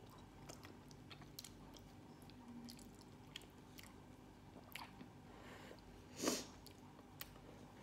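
Faint chewing of soft roasted sweet potato, with scattered small clicks and one louder mouth noise about six seconds in.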